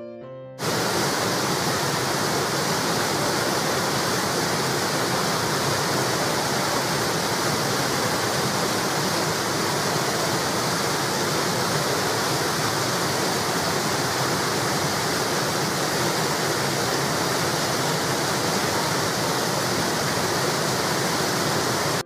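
Water spilling over a low weir, a steady even rushing that cuts in suddenly about half a second in, after a few notes of soft piano music.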